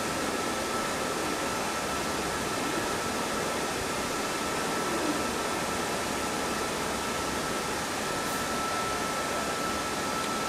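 Steady, even fan-type hiss with a thin constant high whine.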